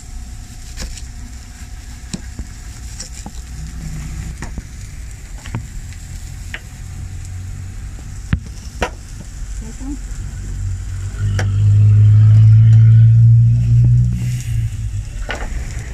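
Burger patties sizzling on a flat-top griddle, with sharp knife taps about once a second as an onion is sliced on a wooden board and pickled jalapeños are cut. About eleven seconds in, a loud, low engine hum rises and holds for some three seconds, then fades.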